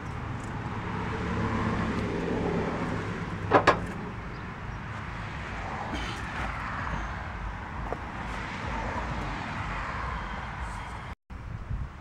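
A motor vehicle running nearby, its engine steady for the first few seconds, with two sharp clicks about three and a half seconds in; a vehicle then passes, swelling and fading.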